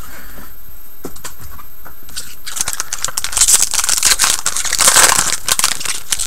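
Foil wrapper of a hockey card pack being torn open and crinkled by hand. It is a dense, crackly rustle that starts softly and grows loudest past the middle.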